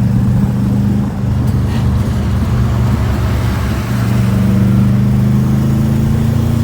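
Turbocharged Proton Wira's 4G15 four-cylinder engine running steadily under way, its note shifting slightly about four seconds in. It is fitted with unequal-length headers meant to give a Subaru-style rumble.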